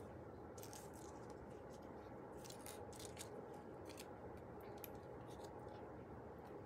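Faint paper handling: a glue stick rubbed onto paper tabs and paper strips rustling as they are pressed down, heard as scattered short crisp ticks and scrapes over a low steady room hum.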